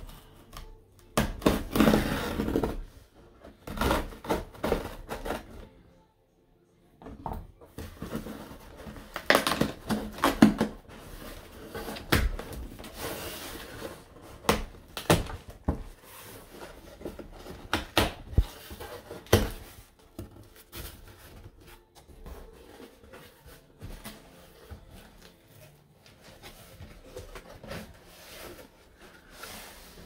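Scissors cutting the packing tape on a cardboard shipping box, then the cardboard flaps being pulled open and folded back: scraping, rustling and sharp clicks, loudest in the first half and settling into quieter rubbing and taps.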